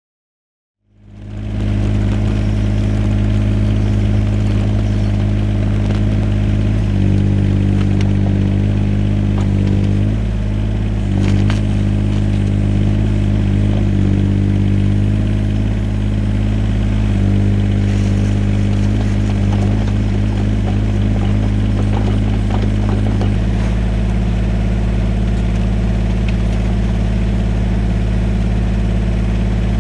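Yanmar VIO17 mini excavator's diesel engine running steadily, coming in about a second in. Its note changes several times in the middle, then settles.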